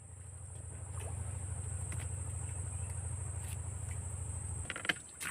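A small engine running with a low, even pulse, growing louder over the first second and cutting off sharply near the end. A steady high-pitched insect drone runs behind it throughout.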